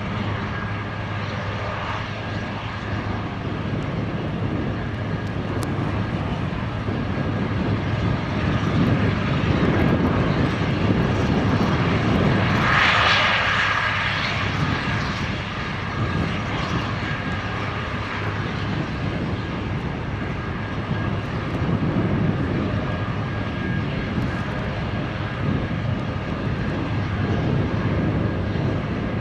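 Aerospatiale/Eurocopter AS 332 Super Puma helicopter running on the ground: its twin turboshaft engines and main rotor make a steady noise with a constant high turbine whine. A louder rush swells and fades about thirteen seconds in.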